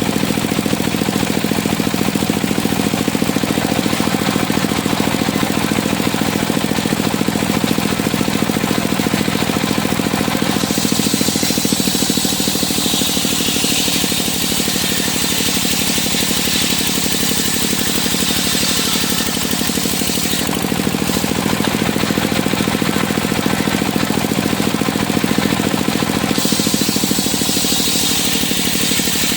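Engine-driven circular sawmill running steadily. About ten seconds in, the saw starts cutting wood with a high hissing whine that dips in pitch and comes back up, then stops about ten seconds later; a second cut begins near the end.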